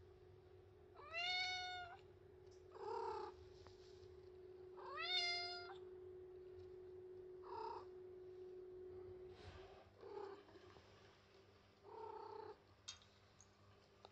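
White Munchkin cat meowing for attention: two long, clear meows about a second and five seconds in, each rising then held, followed by several shorter, quieter meows.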